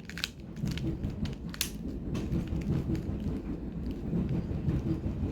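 A plastic mirror cube being twisted, with a few sharp clicks of the layers turning over a steady low rumble.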